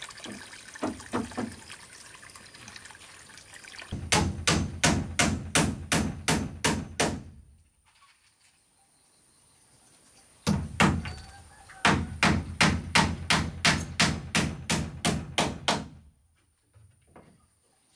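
Hammer blows on a wooden beam: two runs of quick, even strikes, about four a second. The first run lasts about three seconds; the second starts after a short pause, breaks briefly, then goes on for about four seconds. A few lighter taps come about a second in.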